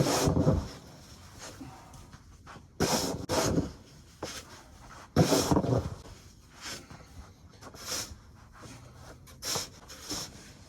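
Snow shovel scraping and scooping heavy, slushy snow in a series of separate strokes. The loudest strokes come in the first half, then fainter ones follow.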